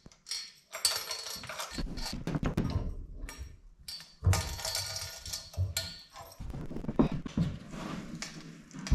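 Irregular thunks and knocks on wood, with rustling and scraping, as someone moves about and handles things among the wooden rafters and plywood loft floor.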